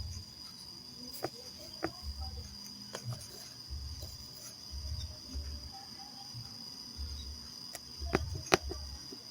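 Steady high-pitched insect tone, like a cricket's trill, over scattered sharp clicks and intermittent low rumbles.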